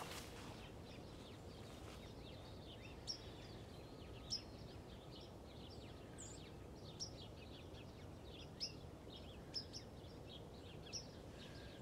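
Faint outdoor ambience: small birds chirping repeatedly in quick high notes over a steady low background noise, the chirps starting about two seconds in.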